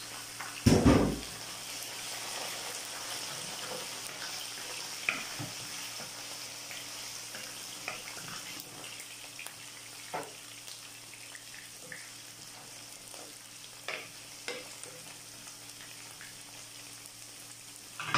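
Chicken pieces sizzling steadily in a frying pan with sautéed onion and garlic, with a wooden spoon clicking and knocking against the pan now and then. A loud thump about a second in.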